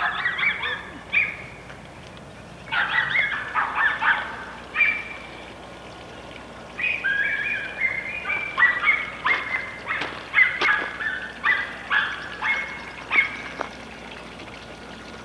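Domestic fowl calling: short, sharp, repeated calls in three bouts, the longest running about six seconds.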